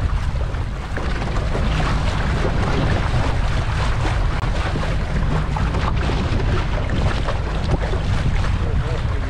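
A boat under way, with a steady rumble and rushing water, and wind buffeting the microphone.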